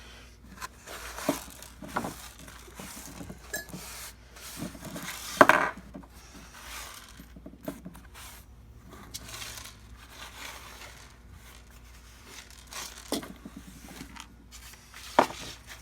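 Small metal parts clinking and knocking in scattered, irregular handling, with one louder knock about five and a half seconds in.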